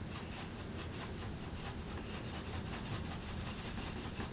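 Black pepper being ground with a pepper mill: a quiet, steady run of fast, even, scratchy rasps.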